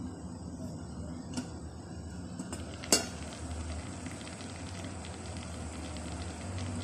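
The metal lid of an electric rice cooker clacks sharply once as it is lifted off, about three seconds in. After that comes a faint, steady crackle and bubbling from the just-boiled contents, over a low hum.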